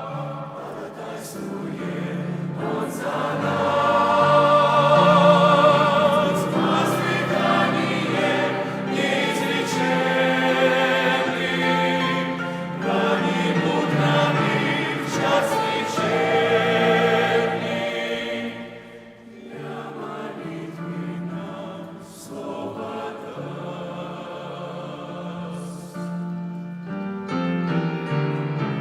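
A choir singing a slow Christian hymn in long, wavering held notes with musical accompaniment. About two-thirds of the way in the singing drops away and the music goes softer, and short plucked notes come in near the end.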